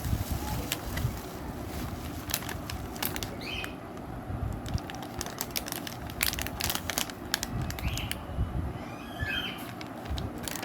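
Irregular clicks and crinkling from handling, with a few short bird chirps in the background.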